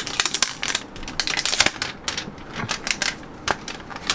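Quick, irregular runs of light, sharp clicks and taps, like typing on keys.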